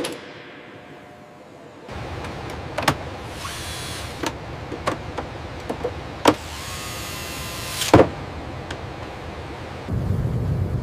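A steady mechanical hum with scattered sharp clicks and knocks and two sliding whooshes, like latches and panels being worked; a deep low rumble comes in near the end.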